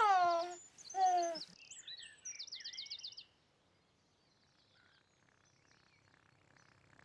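Bird calls: two strong falling calls in the first second and a half, then high chirps and a quick high trill that stop about three seconds in, leaving faint background hiss.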